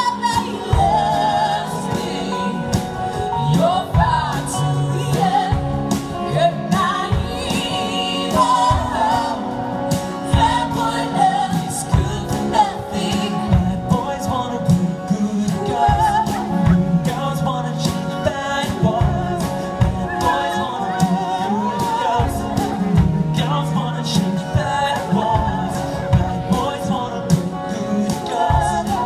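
A live full band playing a song with singing, with drums, electric and acoustic guitars, bass guitar and keyboard.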